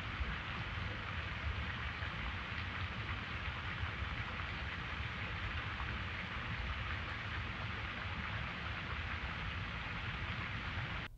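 A steady, even rushing noise with no tones or rhythm, which cuts off abruptly near the end.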